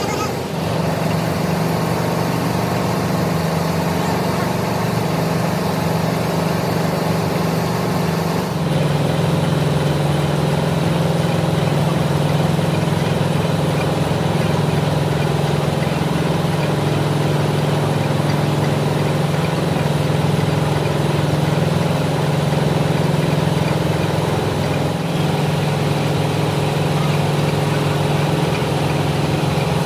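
Heavy machine-shop machinery running with a steady low hum. The sound changes abruptly about nine seconds in, and the hum then runs a little louder.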